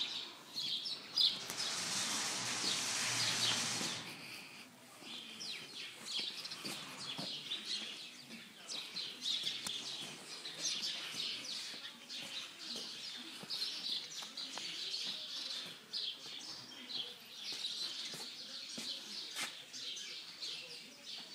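Many small birds chirping and twittering together, a dense, unbroken run of short high calls. A noisy rustle lies over the chirping for the first few seconds.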